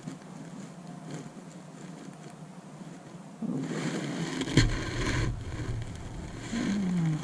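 Oil paintbrush scraping across a smooth painting panel, growing louder with rustling handling noise in the middle and a single sharp knock about four and a half seconds in. A short falling tone sounds near the end.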